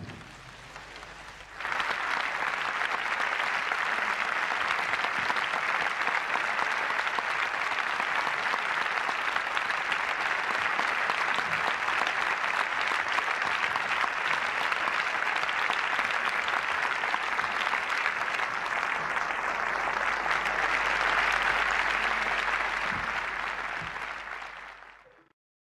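Audience applause breaks out about a second and a half in and continues steadily, then fades out near the end.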